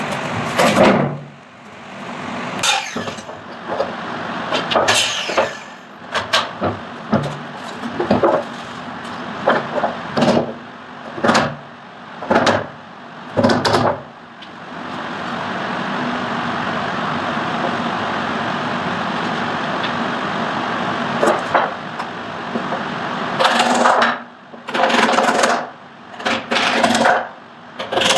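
Woodworking sounds: a series of short, separate strokes or knocks on wood about a second apart, then a steady machine noise for several seconds, then more short strokes.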